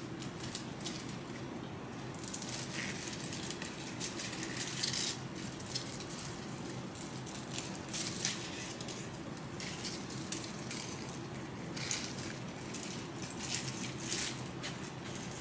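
Eucalyptus stems and leaves rustling and crackling as a bundle is handled and wrapped with twine, in short irregular crackles over a steady low hum.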